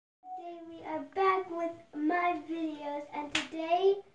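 A child singing a short tune in held notes, with one sharp hand clap about three and a half seconds in.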